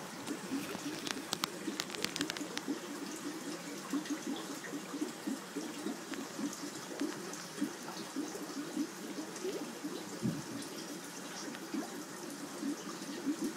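Aquarium water bubbling and trickling steadily in a dense, irregular burble, with a few faint clicks about a second or two in.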